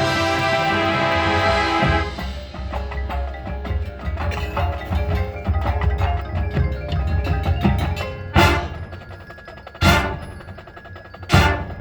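High school marching band playing: a held full-band chord breaks off about two seconds in, giving way to mallet percussion and drums over a low pulse. Three loud struck accents with ringing tails land in the last four seconds.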